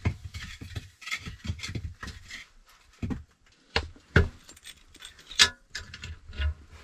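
Knocks and sharp metallic clinks as the sheet-metal firebox door of a clay-plastered wood stove is handled and swung open, the loudest clink about five and a half seconds in.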